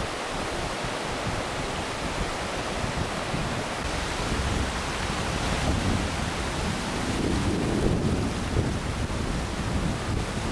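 Fast river water rushing over a stony bed, a steady hiss, with wind buffeting the microphone in low rumbles that grow stronger from about four seconds in.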